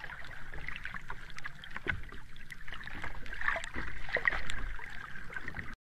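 Water splashing and sloshing, with irregular small knocks through it; it cuts off suddenly near the end.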